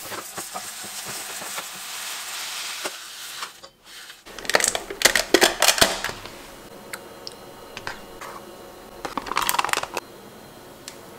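Rice being swished in water in a steel pot, a soft noisy rush, then runs of clicks and clinks as a plastic yogurt tub is handled and yogurt is spooned into a glass bowl.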